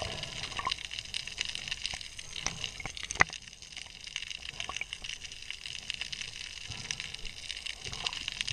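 Underwater ambience picked up by a camera in its housing: a steady hiss with scattered crackling clicks, and one sharper click about three seconds in.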